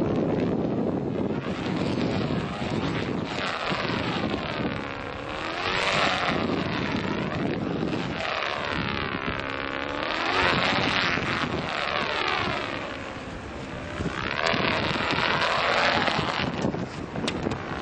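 Wind blowing across the microphone, a continuous rushing noise that swells and fades in long whooshes every few seconds.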